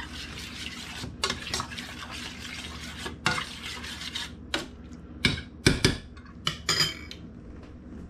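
A metal spoon stirring and scraping thick canned SpaghettiOs with meatballs in a stainless-steel saucepan, then several sharp clanks of the spoon on metal about five to seven seconds in.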